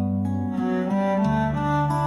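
Slow instrumental music: sustained low bowed-string notes, cello-like, with a changing melody above.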